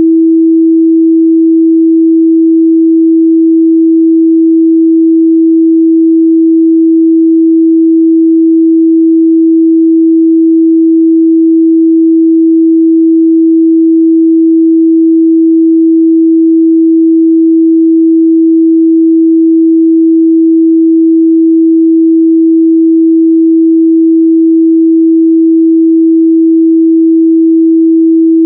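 A steady, loud 326 Hz sine-wave test tone, a single pure pitch held without change, used to check a speaker's or headphone's midrange response.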